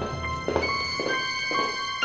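Background drama score: held keyboard notes over soft low thuds about twice a second.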